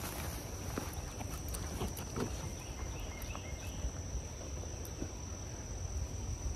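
A steady high-pitched insect trill, over a low rumble and scattered ticks and rustles from walking.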